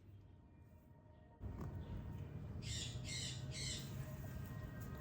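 A bird gives three short, harsh squawking calls in quick succession over a low steady outdoor background.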